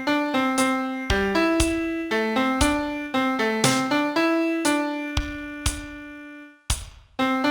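Piano playing a song's vocal melody one note at a time, each note struck and fading, in the chorus of a Mandarin pop ballad. A long held note comes about five to six seconds in, followed by a short break before the melody picks up again near the end.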